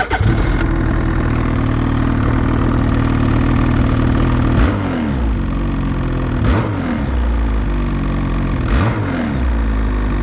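2023 Lynx Rave RE snowmobile's two-stroke engine on its stock exhaust, idling steadily, with three short throttle blips, each rising and falling in pitch, about two seconds apart from around halfway in.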